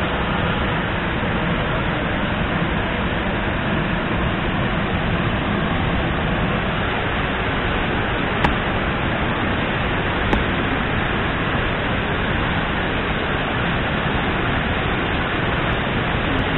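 Curug Cikaso waterfall pouring, a steady rushing noise of falling water mixed with rain. Two short clicks come a couple of seconds apart, about halfway through.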